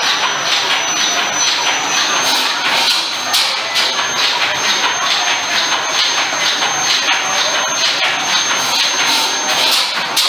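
A 17-ton Western 200 hp stationary engine running steadily, with a rapid, even beat.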